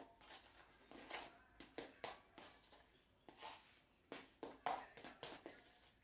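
Small spatula scraping and tapping against the inside of a bowl as yellow colouring is stirred into icing, in short, irregular strokes.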